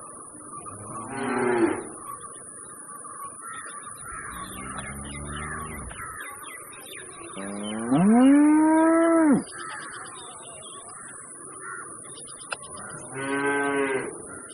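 A bull mooing four times. The calls are a short one, a lower, fainter one, then the loudest and longest, which rises, holds and falls, and a last shorter one near the end.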